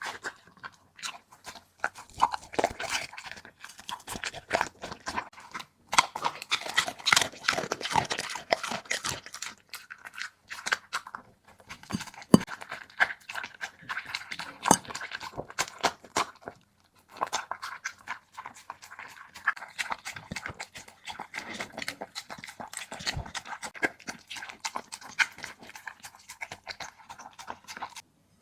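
A border collie chewing and crunching its food, with a dense run of irregular crunches broken by a few short pauses.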